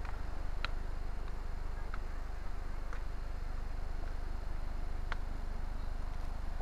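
Steady low rumble of handling noise from a camera carried by someone walking, with a few faint, sharp clicks spaced roughly a second apart.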